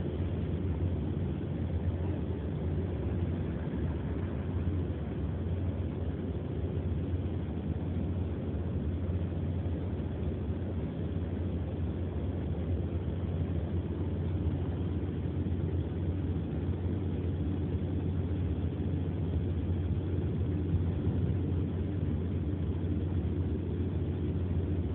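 Steady engine and road rumble of a car, heard from inside the cabin.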